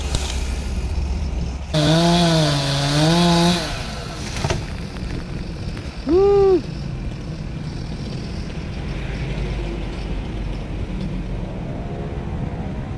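Two-stroke chainsaw revved for about two seconds, its pitch wavering up and down, then a short blip of throttle about six seconds in, over a steady low engine rumble.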